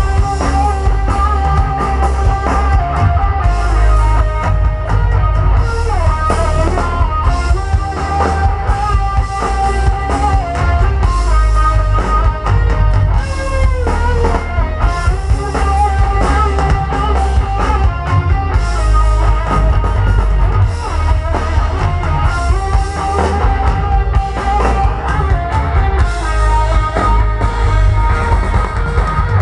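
Rock band playing an instrumental passage on guitars and drum kit, with no singing.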